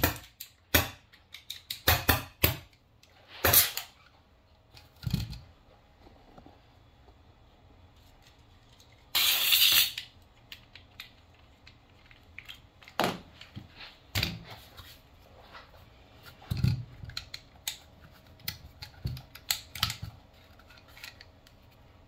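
Scattered clicks, knocks and rattles of a PepperBall TCP launcher being handled at a workbench, with one short hiss of air about nine seconds in.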